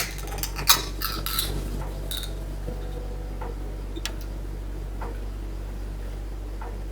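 Scattered sharp clicks and light clatter, bunched in the first two seconds with a few later, over a steady low hum.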